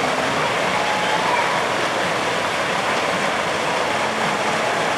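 Steady rushing of running water, an even noise without breaks.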